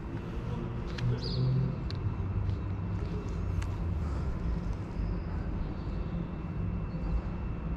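Steady low rumble of distant urban traffic, with a few faint ticks.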